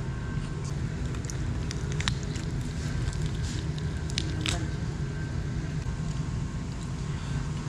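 Eating roast chicken and biryani by hand: chewing and fingers tearing the chicken on the plate, heard as scattered wet clicks and crackles, the clearest about two seconds in and again around four and a half seconds in. A steady low rumble runs underneath throughout.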